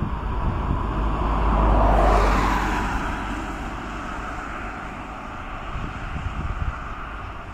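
Jet engine noise from a landing Boeing 777-300ER's GE90 engines, a rushing roar over a deep rumble. It swells to its loudest about two seconds in, then eases off as the airliner settles onto the runway.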